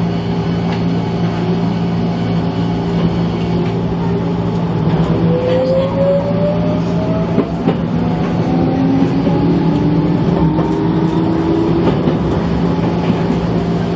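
Gakunan Railway electric train's traction motors whining, rising steadily in pitch as the train accelerates, over a steady low hum.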